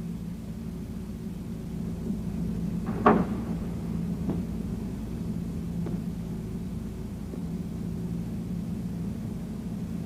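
Steady low hum of a large aircraft hangar, with one sharp knock about three seconds in and two fainter knocks after it.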